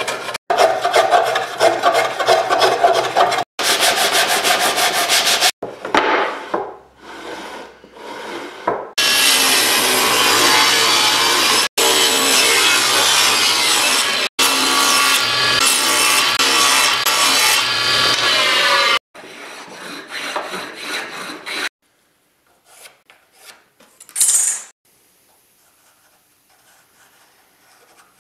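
A hand plane shaving pine in quick scraping strokes for the first few seconds. It is followed by about ten seconds of a table saw running through wood, the loudest part. Near the end there are only faint sounds and one short scrape.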